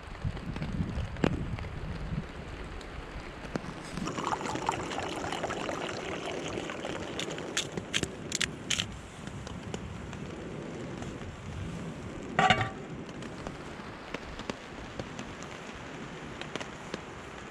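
Steady rain falling on the surroundings, with a quick run of four sharp clicks a little past the middle and a single louder knock later on.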